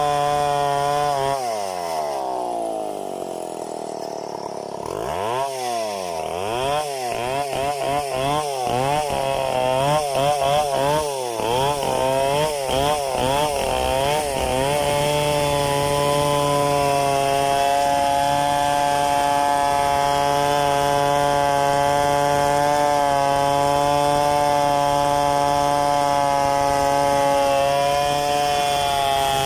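Two-stroke Stihl chainsaw engine running at high speed. About a second in its pitch falls steeply toward idle, then the throttle is blipped rapidly up and down for several seconds before it is held steady at full throttle.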